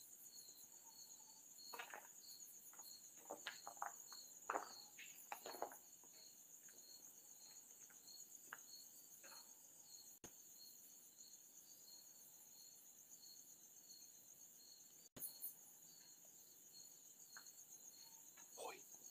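Faint crickets chirping: a continuous high trill with a slower pulsed chirp beneath it, repeating a few times a second. A few faint taps and scuffs come in the first few seconds.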